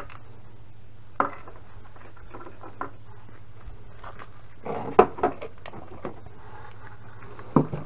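Scattered knocks and light clatter of objects being handled, the loudest a sharp knock about five seconds in, over a low steady hum.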